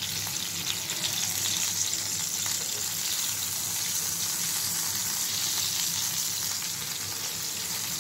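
Stuffed tinda (round gourds) sizzling steadily in hot oil in a nonstick frying pan as they are turned over with metal tongs to brown the other side.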